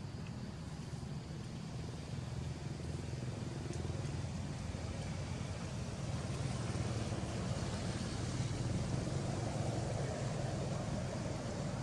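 Steady low rumble of a motor vehicle running, growing a little louder about six seconds in.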